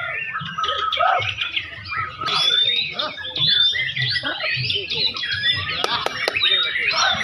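White-rumped shama (murai batu) singing a fast, continuous, varied song of whistles and chirps, with other song overlapping. Two sharp clicks about 6 seconds in.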